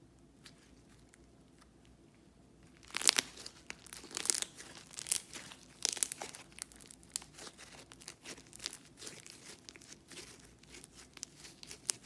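Blue slime being squeezed and kneaded by hand, giving crisp crackling and popping clicks. It starts about three seconds in and comes in irregular clusters from then on.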